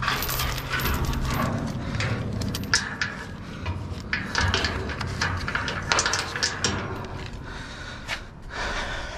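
Irregular clatter and knocks of junk and scrap being handled and rummaged through, with a steady low hum under the first second or so.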